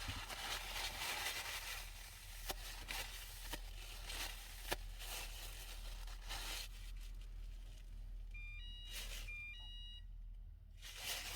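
A HORL 2 rolling knife sharpener's grinding disc is rolled back and forth along a steel knife edge: repeated gritty grinding strokes with a few light clicks, which stop about seven seconds in. Near the end comes a short run of high, stepped beeping tones.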